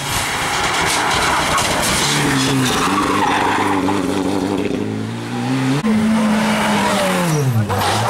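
Mitsubishi Lancer Evolution rally car's turbocharged four-cylinder engine growing louder as it comes in, then pulling hard through a corner. The revs climb, break sharply about six seconds in, and the note falls away near the end as the car goes past.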